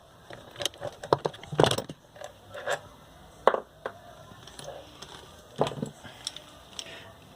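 Irregular metal clicks, scrapes and knocks as a small bearing puller draws a rust-seized 6201 ball bearing off a ceiling fan motor shaft. The loudest knock comes about a second and a half in.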